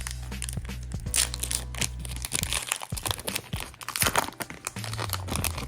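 A foil trading-card booster pack crinkling and tearing as it is ripped open, with many irregular crackles, over a faint low bass line.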